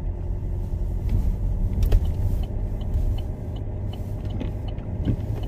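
Inside a car driving slowly in the rain: a steady low rumble of engine and tyres, with one sharp click about two seconds in and a few light ticks after it.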